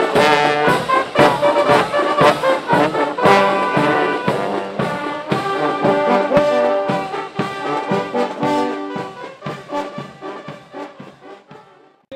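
A drum and bugle corps playing: brass horns over a steady drum beat, marching music. It fades away steadily over the last several seconds.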